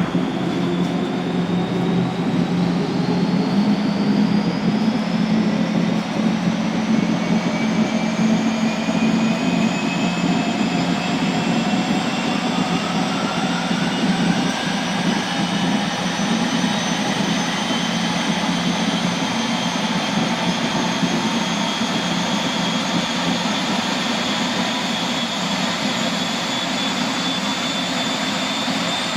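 Allison 501-KF gas turbine of a Boeing 929 Jetfoil starting up: several whines climb slowly in pitch over a steady rushing noise and a low hum as the turbine spools up.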